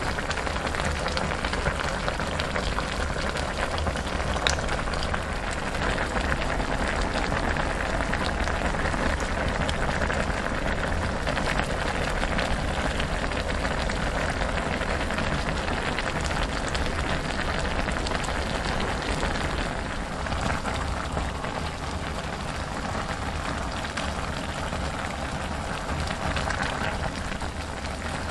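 Pot of budae-jjigae (Korean spicy sausage stew) boiling: a steady, dense crackle of popping bubbles.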